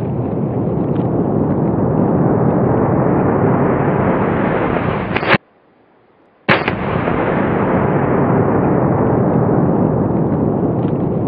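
A slowed-down tannerite explosion set off by a rifle shot, played in reverse and then forward. A long low rumble swells to a sharp crack, there is about a second of silence, and then the crack comes again with the rumble dying away.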